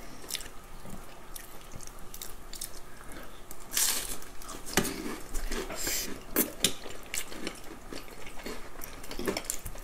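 Close-miked eating sounds: wet chewing and slurping of creamy fettuccine alfredo, with forks clicking against the plate. A louder slurp comes about four seconds in.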